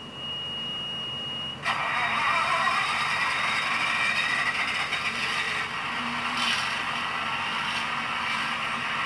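Tsunami sound decoder in an HO-scale genset locomotive model playing its diesel start-up through the model's small speaker: a thin steady high tone for about a second and a half, then the engine sound cuts in suddenly and runs steadily.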